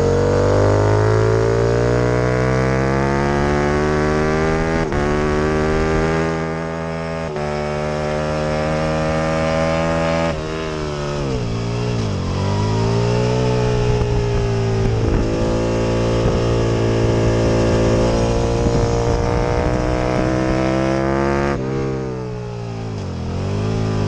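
Aprilia RSV Mille's V-twin engine at race speed, pulling hard through the gears. The pitch climbs and drops sharply at each upshift. Twice it falls away under braking and downshifts, then pulls back up out of the corner.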